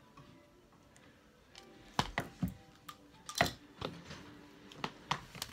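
A series of sharp clicks and knocks, several in a row from about two seconds in, the loudest about three and a half seconds in.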